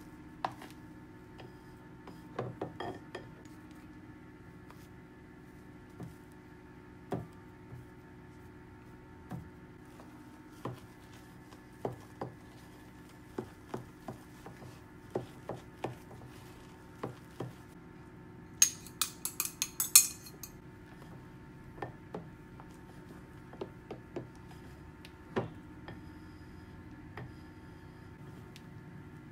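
Spatula knocking and scraping against a glass mixing bowl while folding meringue into sponge batter, with scattered clinks. About two-thirds of the way through comes a quick run of sharper, brighter taps, the loudest moment.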